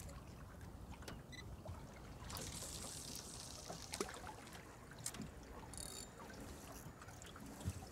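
Faint water lapping and trickling against a small boat's hull, with a few light knocks and clicks.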